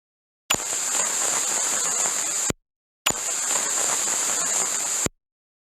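Two bursts of radio-frequency interference static, each about two seconds long, with a sharp hiss riding on crackling noise; each starts and cuts off abruptly, the second coming about half a second after the first ends.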